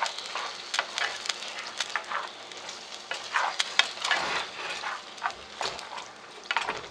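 Thick fresh noodles in sauce sizzling in a nonstick skillet while being stirred and folded with a spatula. Over the steady sizzle come irregular scrapes and soft knocks of the spatula against the pan.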